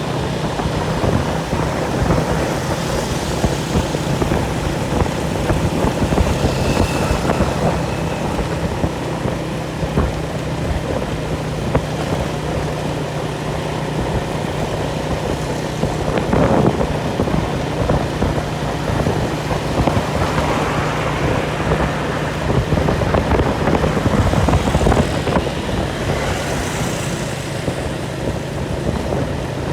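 An engine running steadily under a loud rush of wind and noise, with an even hum throughout.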